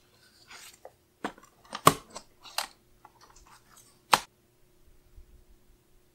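A sheet of sticker paper is handled and slid into place on a paper trimmer. The paper rustles softly, and there are four sharp clicks and taps, the loudest about two seconds in.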